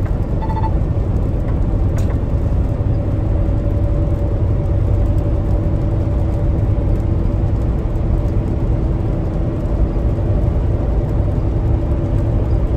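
Semi truck cruising at highway speed, heard from inside the cab: a steady low drone of engine and road noise with a constant hum.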